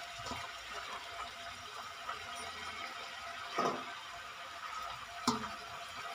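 Raw spinach leaves rustling as they are pressed down and moved by hand in a metal kadhai, over a faint steady hiss, with two short knocks about three and a half and five seconds in.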